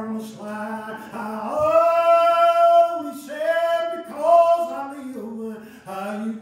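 A man's voice in sung, chant-like preaching, phrase after phrase, rising to a loud held note about two seconds in.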